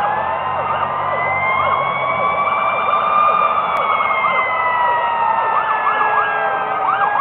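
Several sirens of a fire-engine and ambulance convoy sounding at once. Slow wails rise and fall in pitch, with many quick yelp sweeps over them.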